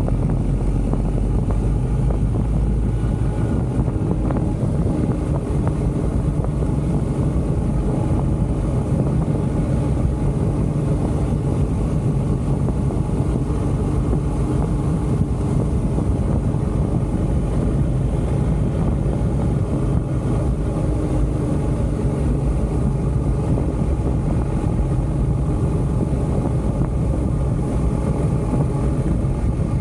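BMW motorcycle engine running at a steady cruising speed, with wind rushing over the microphone.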